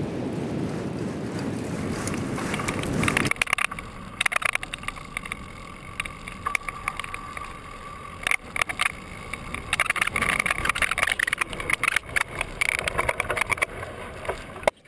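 Wind rushing over the microphone. About three seconds in it switches abruptly to a stream of crackling rattles and scrapes over a faint steady whine: a fat-tire bike riding over sand dunes, heard close up through an action camera.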